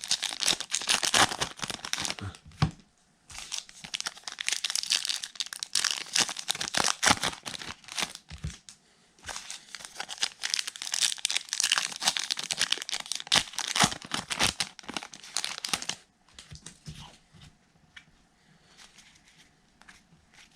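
Baseball card pack wrapper being torn open and crinkled by hand, in stretches of crackling with short pauses, then going much quieter about three-quarters of the way through as only light handling remains.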